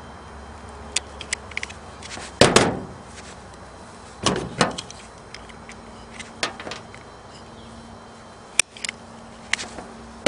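Wire stripper clamping and pulling insulation off the cut ends of an extension cord: a series of sharp clicks and snaps, loudest about two and a half and four and a half seconds in, over a faint steady hum.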